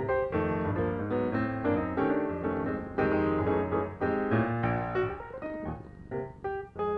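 Background piano music: a gentle melody of quick, decaying notes over a low bass line.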